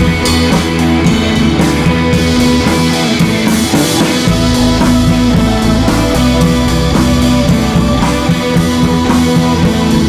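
Background music: a rock-style track with guitar and drums, and a deep bass layer coming in about four seconds in.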